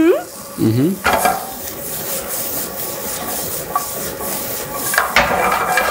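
Asparagus and peppers with a little garlic frying in a pan, stirred and scraped around the pan with light clinks, and a knock of the pan about five seconds in.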